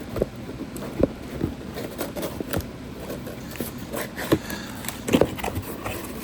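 A cardboard box and its packing being opened and handled by hand: irregular crackles, scrapes and knocks, with a few louder knocks about a second in and near the end.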